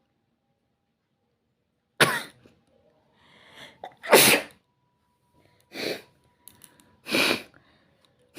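A person sneezing four times in a row, a second or two apart, with a fifth sneeze starting right at the end. The loudest sneeze comes about four seconds in, after a short audible in-breath.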